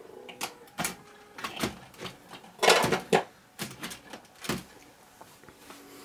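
Hard plastic knocking, clicking and scraping as a Krups coffee grinder body is pushed and worked down onto a 3D-printed ABS lid, its threaded rods catching in the mounting holes: about half a dozen knocks, the loudest a longer scrape about two and a half seconds in, then it goes quiet near the end.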